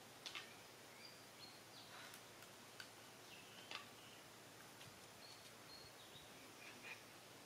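Near silence: a faint background hiss with a few faint, short, high chirps and a few soft clicks scattered through.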